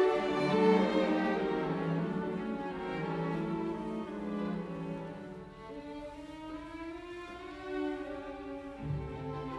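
Background music: a string ensemble of violins and cellos playing long held notes.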